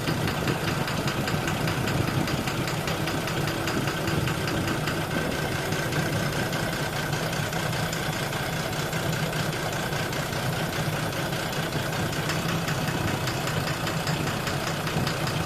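12-M FE car engine idling steadily with a knocking noise, the fault being diagnosed.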